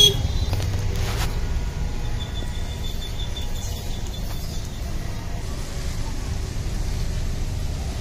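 Steady low rumble of outdoor background noise, with a sharp click at the start and a faint high-pitched pulsing tone for a few seconds in the middle.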